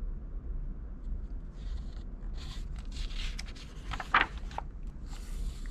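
A page of a hardcover picture book being turned by hand: a few papery rustles and scrapes as the sheet slides over, with a sharper flap of paper about four seconds in.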